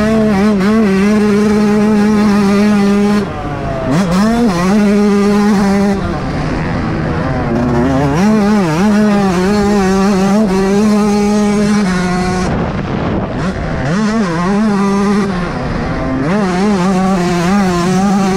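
Yamaha YZ125 two-stroke single-cylinder motocross engine held at high revs under full throttle, its pitch dropping briefly when the throttle is chopped about three seconds in and several more times, then climbing straight back up.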